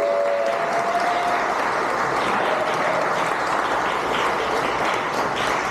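Crowd applauding steadily for several seconds, with a short cheer at the start.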